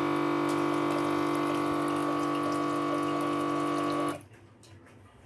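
Twin-pot Fakir Kaave Pro Turkish coffee machine's water pump running with a steady hum as it draws water from its rear reservoir into the pot, cutting off suddenly about four seconds in once the water is taken.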